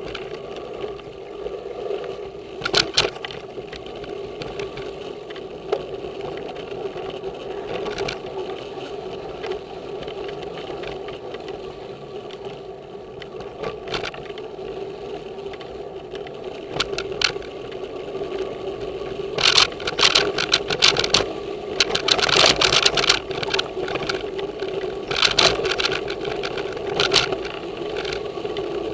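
Giant Trance X0 full-suspension mountain bike rolling fast down a dirt singletrack, heard from a camera mounted on the bike: a steady hum from the tyres and drivetrain. From about twenty seconds in come clusters of sharp rattles and knocks as the bike clatters over rough ground.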